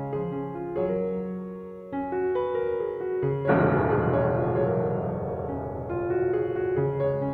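Background piano music with a light, stepping melody. About halfway through it turns suddenly louder and fuller, then fades back over about three seconds.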